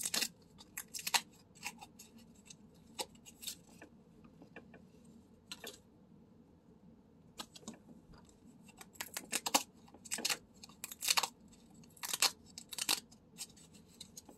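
Paper pull-tab lottery tickets being torn open by hand: a series of short, sharp paper rips and snaps as the perforated tabs are pulled back, coming in clusters with a pause of about two seconds midway.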